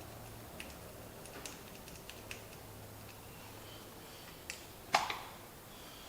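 Scattered light clicks and taps, with one sharp, louder click about five seconds in.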